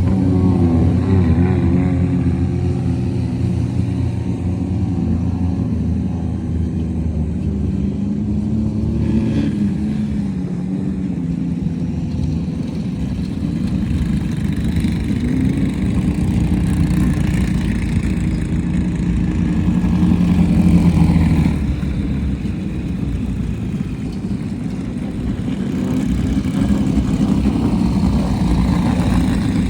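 Off-road race vehicle engines running hard, their pitch rising and falling with the throttle.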